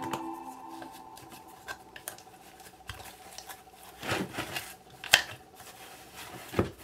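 Glitter slime being squished and kneaded by hand in a glass bowl: soft sticky rubbing with a few sharp clicks, the loudest about five seconds in.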